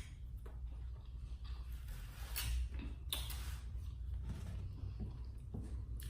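Eating sounds from a seafood boil of shrimp, corn and sausage: scattered short wet clicks and smacks of chewing and handling the food, the loudest two a little past the middle, over a steady low hum.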